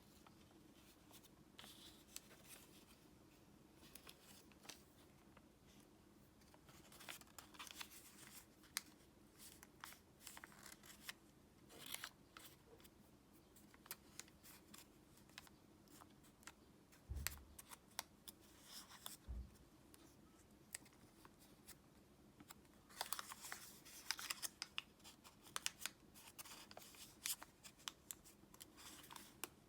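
Origami paper being handled and folded by hand: faint rustling with scattered crisp ticks as creases are pressed, and two soft thumps a little past the middle.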